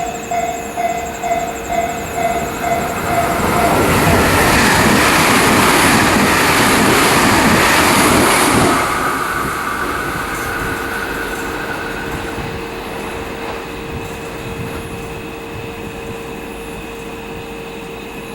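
Limited express Wide View Shinano, a 383 series electric multiple unit, passing through a station at speed. A warning bell dings about three times a second and stops about three and a half seconds in. Then comes about five seconds of loud wheel and air rush, which fades away, over a steady hum.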